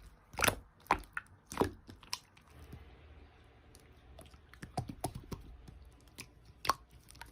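Slime being squeezed and poked by hand, giving irregular sticky clicks and pops.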